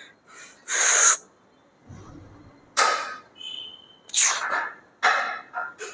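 A weightlifter's hard, forceful exhalations during a set of heavy dumbbell bench presses: a series of about five loud breaths, roughly one a second, the breathing of effort with each rep.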